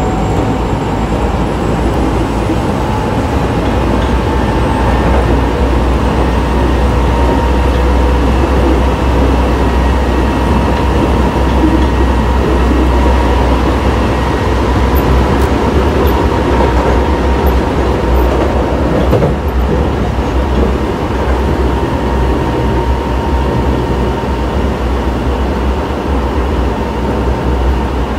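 Osaka Metro 24 series train running, heard from inside the car, with the whine of its Hitachi IGBT VVVF inverter and traction motors. The whine rises in pitch over the first few seconds as the train gathers speed, then holds steady over the continuous rumble of wheels on rail.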